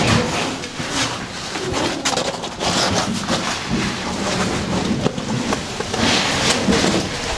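Caving oversuits and gloves scraping and rustling against the rock and mud walls of a tight cave squeeze as cavers crawl through, with irregular scuffs and knocks.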